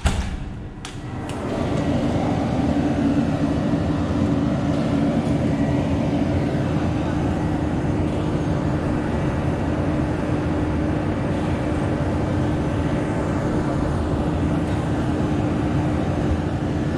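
Heavy diesel construction machinery, a concrete mixer truck and a backhoe, running with a steady, constant engine drone that comes up loud about a second and a half in.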